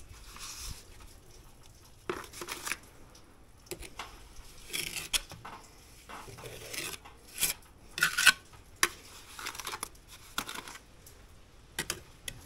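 Steel pointing trowel scraping and tapping on brick as mortar is spread into a bed joint, in a series of short, irregular scrapes and clicks, the loudest about two-thirds of the way in.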